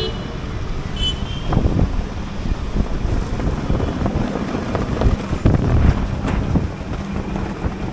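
Wind rumbling on the microphone over the steady noise of city street traffic.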